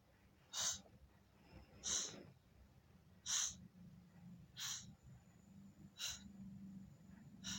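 A person's short, hissing breaths close to the microphone, evenly paced about one every second and a half, as after a fright. A faint low hum rises underneath near the end.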